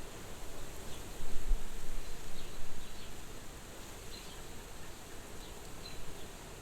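Soft wind blowing steadily, with a louder low gust about a second in. Faint short, high chirps come and go.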